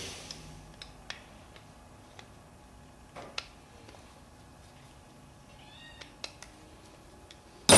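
A kitten mews faintly about six seconds in, over faint scattered clicks of a screwdriver backing out the small screws of a carburetor's choke pull-off diaphragm. A sudden loud sound near the end.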